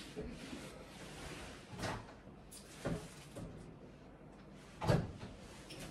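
A few separate knocks and clatters of kitchen things being handled while a grater is fetched, at about two, three and five seconds in, the last the loudest.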